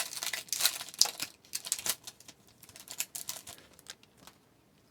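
A hockey card pack being handled: quick dry crinkles of the wrapper and clicks of the cardboard cards, thick at first, thinning out and stopping about four seconds in.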